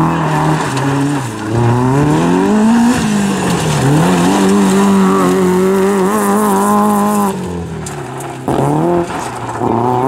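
Small rally hatchback's engine revving hard at full throttle, its pitch climbing and falling back with each gear change. The sound cuts abruptly to another car revving near the end.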